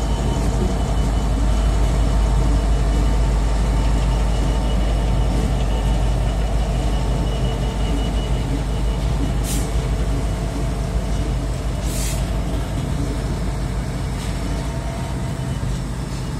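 GBRf Class 66 diesel-electric locomotive's two-stroke EMD V12 engine running with a heavy, steady low drone as it moves slowly past at low speed, easing off slightly toward the end as it pulls away. Two short hisses of air, about halfway through and again a couple of seconds later.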